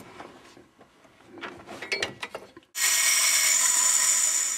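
Soft scattered clicks and rustles of hands working around the belt and pulleys. About two-thirds of the way in, a loud steady hiss starts suddenly.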